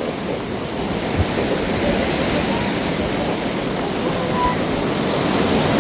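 Whitewater river rapids rushing steadily around a raft, slowly growing louder.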